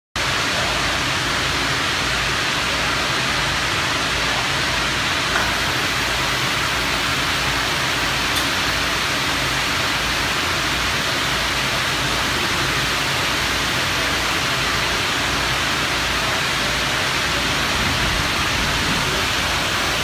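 Steady, even industrial roar of a furnace plant, unchanging throughout, with a faint tick about five seconds in and another about eight seconds in.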